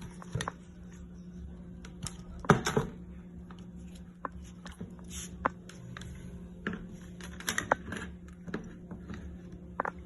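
Scattered clicks and knocks of objects being handled and set down, the loudest about two and a half seconds in, over a steady low hum.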